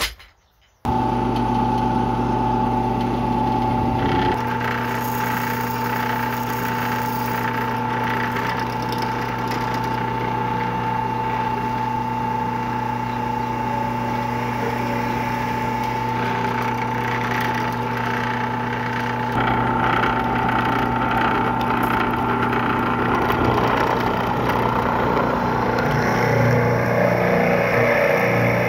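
Drill press motor running with a steady hum while its bit bores into wood, the cutting noise growing louder over the last few seconds.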